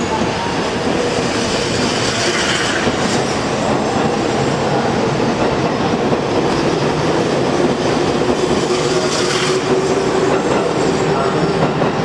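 JR East E653 series electric multiple unit pulling out of the station, its cars rolling past directly below with a steady, continuous wheel-on-rail running noise.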